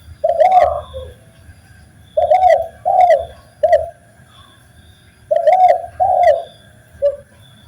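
Spotted dove (tekukur) cooing: three phrases of low, throaty coos, each of two or three notes, a couple of seconds apart.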